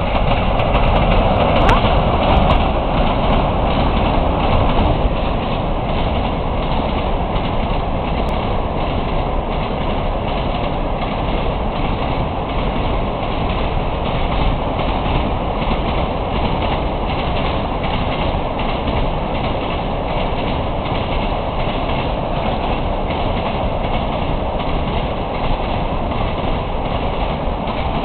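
PKP ET41 twin-unit electric locomotive passing at the head of a loaded train of open coal wagons, loudest in the first few seconds, then the wagons rolling by in a steady rumble with the wheels clacking over the rail joints.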